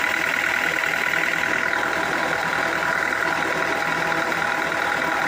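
Sawmill machinery running steadily, an even mechanical hum with a high whine over it.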